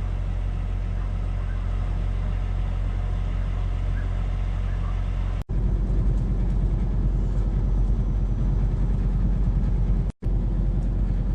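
Steady engine and road rumble inside a moving vehicle's cab. It drops out abruptly twice, about five and ten seconds in, and the rumble is louder after the first break.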